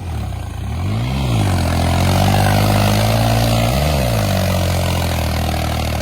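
New Holland 3630 tractor's diesel engine labouring as the tractor drives through deep mud with its belly dragging. The engine note rises and falls back twice, about a second in and again about four seconds in.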